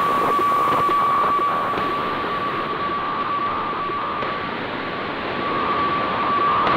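HF weather fax (WEFAX) signal heard through a Grundig 750 shortwave receiver in upper sideband: a steady tone near 1 kHz over radio hiss. It weakens a little in the middle as the signal fades, then comes back.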